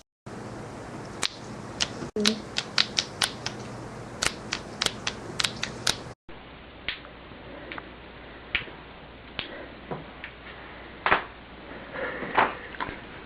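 Neck and back joints cracking: a quick series of sharp pops and clicks, a dozen or so in the first six seconds. A cut to a duller-sounding recording follows, with about ten more cracks spaced further apart.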